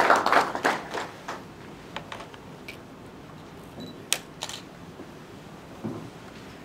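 An audience's applause dying away over the first second or so, followed by a few scattered sharp clicks.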